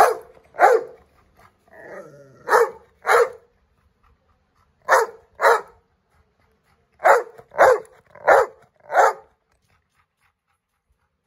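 Pet dog barking: about ten sharp barks, mostly in pairs about half a second apart, with a short whine between the first barks, stopping about nine seconds in.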